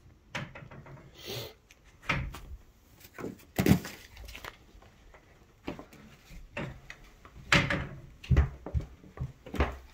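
Footsteps going down wooden stairs: an irregular series of knocks and thumps, a few of them louder.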